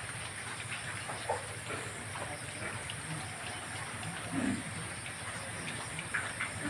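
Pig pen ambience: a steady hiss with scattered small clicks and a few faint pig grunts, one low grunt about four and a half seconds in.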